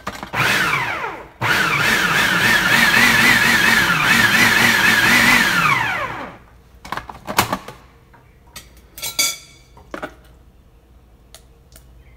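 Food processor motor pulsed twice while chopping eggplant into a mash: a short burst, then a steady run of about four and a half seconds. Each run winds down in pitch as the blade slows. A few light clicks and knocks follow.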